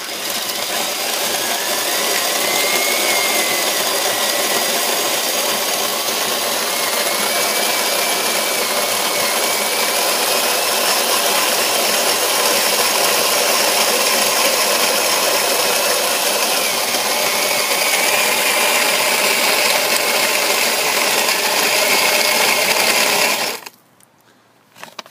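Cordless drill driving a cast-iron Victoria (Corona-style) grain mill, grinding grain: a steady drill whine that wavers slightly in pitch over the grinding rattle of the mill. It stops suddenly near the end.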